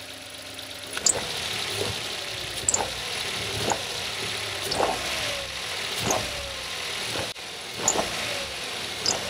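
Kia Ray's engine idling while its accessory belt drive gives a cricket-like metallic chirp about once a second, each a short squeak with a quick falling tone. The owner puts the chirp down to a worn accessory belt and idler pulley bearing.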